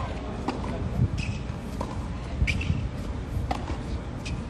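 Tennis balls struck with rackets and bouncing on a hard court in a practice rally: sharp pops about once a second, the loudest about two and a half seconds in, over a steady low rumble.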